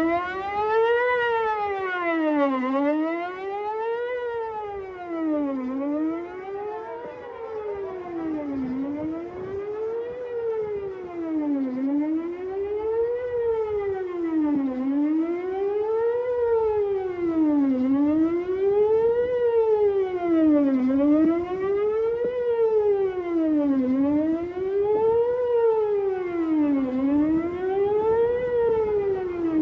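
Whelen WPS-4008 electronic outdoor warning siren sounding its monthly test: a wail that rises and falls about every three seconds.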